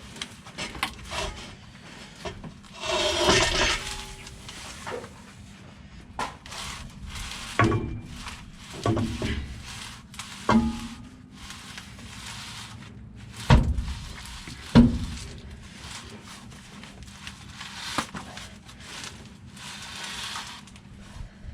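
Irregular clanks and knocks of tools and metal truck parts being handled and set down, some ringing briefly. There is a longer scraping noise about three seconds in and two sharp knocks a little over a second apart past the middle.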